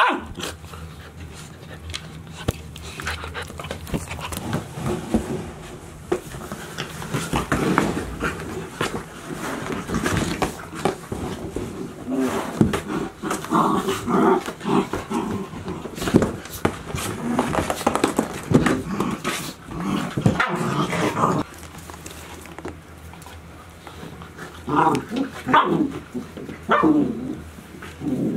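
Ten-week-old golden retriever puppies playing rough, with short growls and barks among knocks and scrapes of paws and bodies on a cardboard tube and the floor. A few short barks come close together near the end.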